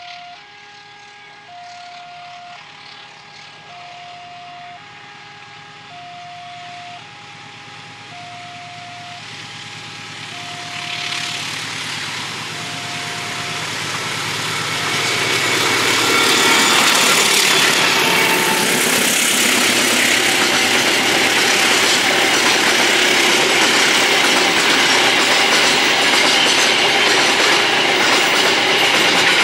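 Level-crossing warning alarm sounding two alternating tones, switching about once a second, over the growing sound of an approaching diesel locomotive. Past the middle the locomotive's diesel engine roars very loud as the throttle is opened up, and the loaded container wagons follow, rolling past with a clickety-clack of wheels on the rails.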